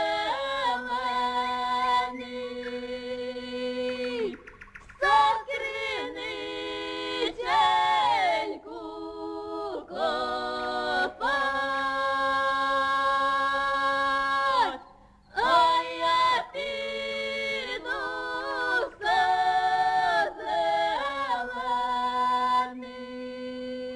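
Unaccompanied singing: long drawn-out held notes in phrases of a few seconds, sliding between notes, with short breaks between phrases.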